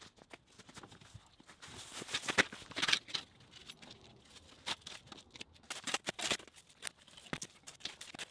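Irregular scraping, crumbling and light knocks of broken concrete and leveling compound being pried loose and moved, with a few louder scrapes about two, three and six seconds in.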